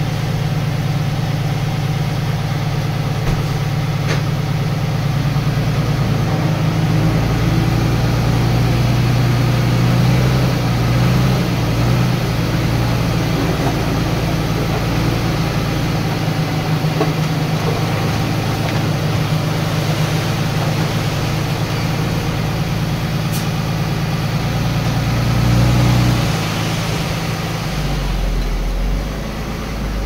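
Diesel engine of heavy earth-moving machinery running steadily, swelling briefly near the end.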